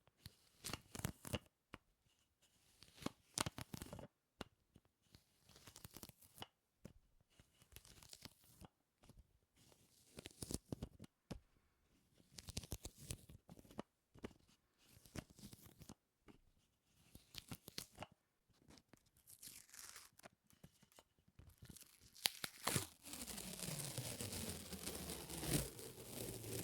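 Close-miked sticky ASMR sounds: something tacky peeling apart in short crackling bursts, one cluster every second or two. Near the end a steadier, louder noise with a low hum sets in.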